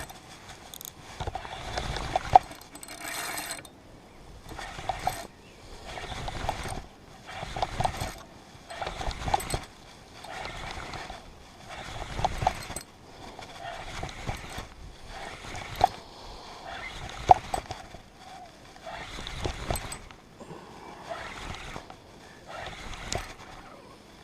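A noisy fishing reel being wound in short bursts about every second and a half, its gears giving a clicking rattle with each turn.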